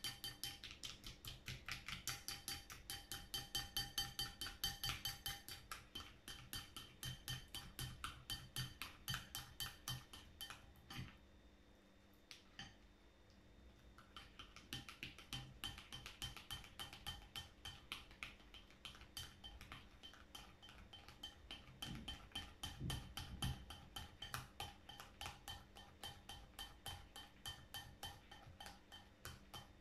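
A plastic fork stirring a beer-and-glue mixture in a bowl, clicking and scraping against the bowl in a quick, steady rhythm of about five strokes a second. The stirring stops for a few seconds about a third of the way through, then starts again.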